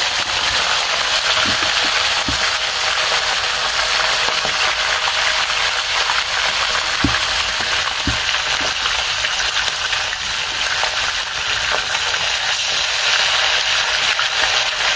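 Whole fish deep-frying in very hot oil: a loud, steady sizzle, with a few brief low knocks.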